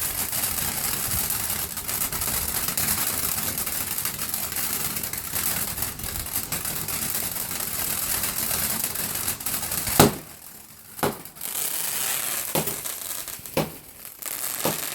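Fireworks going off: a steady crackling hiss for about ten seconds, then one sharp loud bang followed by a few smaller pops.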